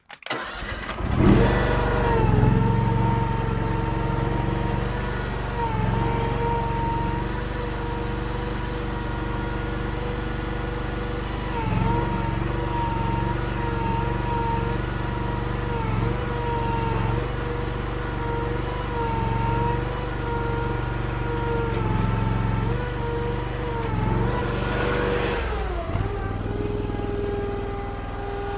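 Honda gas engine of a Derette DRT450 mini skid steer running, with its pitch dipping briefly every few seconds as the hydraulics take load. Near the end it swells, drops and settles to a lower, steady speed.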